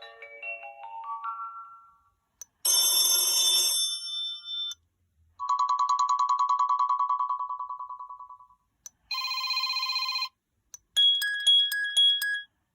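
Sony Xperia Z5 Compact ringtones and alert tones played one after another, each a few seconds long with short gaps between: the end of a rising run of notes, a bright chime, a pulsing tone that fades out, a short buzzy tone, and a repeated high two-note beep near the end.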